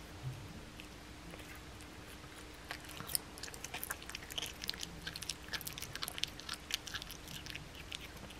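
A blue tortoiseshell cat chewing a boneless raw chicken thigh: a quick run of small sharp mouth clicks from its bites, starting about three seconds in and thinning out near the end.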